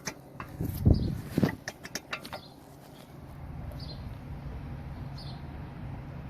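Metallic clicks and knocks of a brake caliper and tools being handled as the caliper is worked off the brake disc, the two loudest knocks about one and one and a half seconds in. After that a steady low hum with a few faint high chirps.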